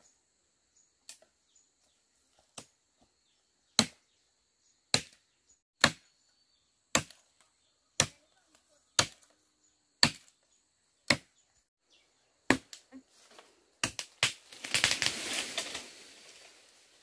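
A blade chopping into the base of a young tree trunk, about a dozen sharp strikes roughly a second apart. Near the end comes a louder rushing crash of leaves and branches.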